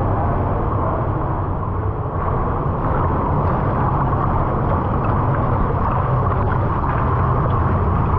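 Fast-flowing river water rushing steadily, with a low rumble underneath.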